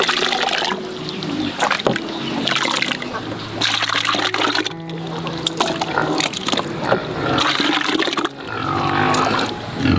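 Background music over water splashing and trickling.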